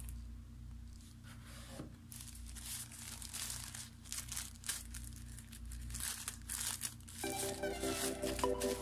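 Crinkling and rustling of packaging being handled, in irregular crackles, over soft background music. Near the end the music grows louder with held notes.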